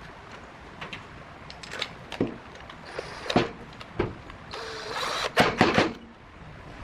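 Workshop handling sounds: scattered knocks and clicks of tool parts being set down and fitted, with a short burst of a small motor whirring about four and a half seconds in, followed by the loudest knocks.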